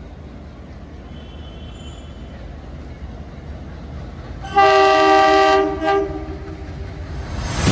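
Twin-tone air horn of an approaching WDM-3D diesel locomotive: one loud blast of about a second, starting suddenly about halfway through, then a brief second toot. The locomotives' diesel engine rumble is faint at first and grows louder toward the end as the train nears.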